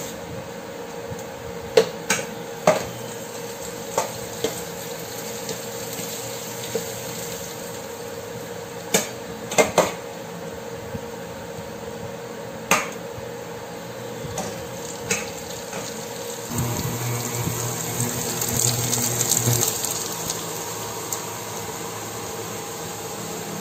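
Scrambled eggs and tomatoes frying in a stainless steel pan, a steady hiss, while a metal spatula scrapes and taps against the pan about a dozen times. About two-thirds of the way through the sizzling grows louder for a few seconds, with a low rumble under it.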